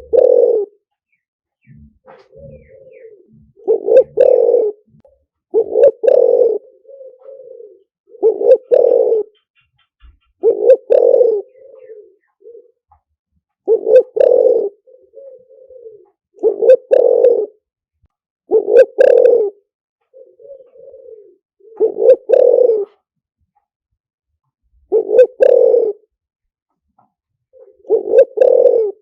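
Spotted dove cooing over and over: a loud, low coo phrase about every two to three seconds, with softer short coos in between.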